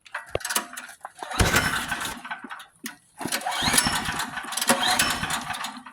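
Generac portable generator's engine pull-started twice, turning over with a rattle each time but not catching: it is not getting fuel.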